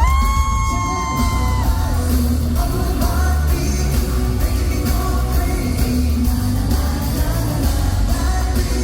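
Live pop song played loud over a concert sound system, with a heavy bass beat and singing. A high note slides up and holds for about a second and a half at the start.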